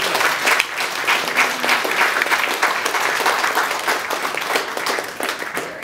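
Audience applauding, many people clapping steadily.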